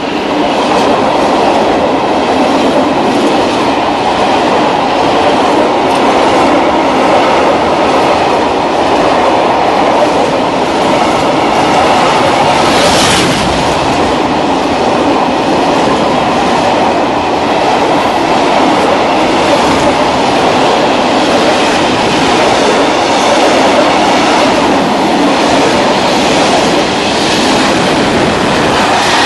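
Freight train of open-top wagons passing close at speed: a steady, loud rolling rumble with the wheels clattering over the rail joints, and one sharper noise about halfway through.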